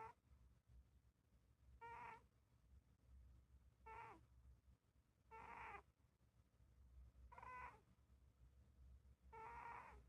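Scottish Fold cat snoring in its sleep: a short, pitched, squeaky snore on each breath, coming regularly about every two seconds.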